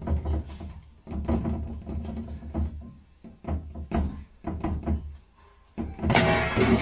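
Light knocks and thunks of a hand tapping a small plastic wall access panel, over background music with a bass beat; a much louder burst of sound starts about six seconds in.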